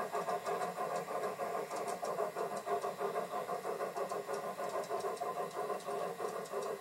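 Garden-scale model Hudson steam locomotive running with its train of passenger cars, a steady mechanical running noise pulsing about four times a second.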